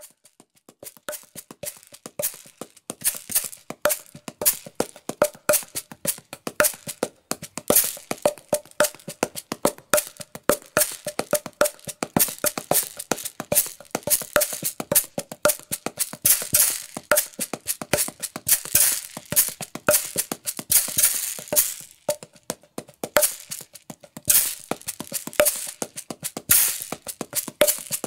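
Kandu Clever Shaker, a small hand-held shaker with two drum faces, played solo in a fast, busy rhythm: a rattling shake mixed with sharp wooden, clave-like strikes that ring with a short tone.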